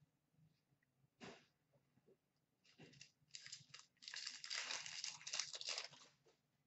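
Crinkling and tearing of a trading-card pack's plastic wrapper being opened by hand: a short rustle about a second in, then a few seconds of irregular crackling, loudest near the end.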